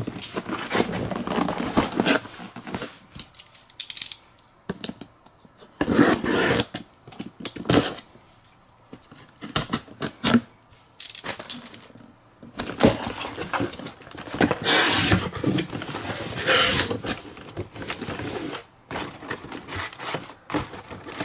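A cardboard shipping case being handled and cut open: a box cutter slicing along the packing-tape seam, and the cardboard flaps scraping and tearing as they are pulled open, in irregular bursts with short pauses. Toward the end, blister-carded die-cast toy cars rustle and click as they are shuffled inside the box.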